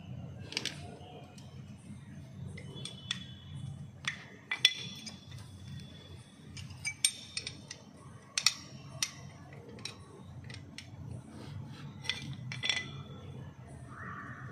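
Irregular sharp metallic clicks and clinks, a dozen or so, some with a short ring, as pliers and fingers work the lever and its pin on a Honda Amaze drum brake shoe.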